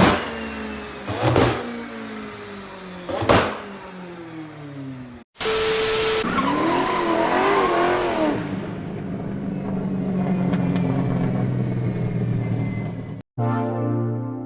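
McLaren 600LT twin-turbo V8 with three loud exhaust bangs in its first few seconds, the engine note falling between them, then a wavering rev that settles into a steady drone. Music comes in near the end.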